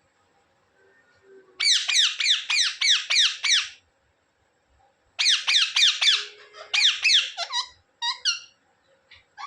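Indian ringneck parakeet squawking in two fast runs of high, downward-sliding calls, about three a second, then a few shorter single calls near the end.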